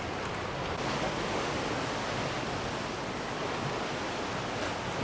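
Steady rushing wash of waves on the shore.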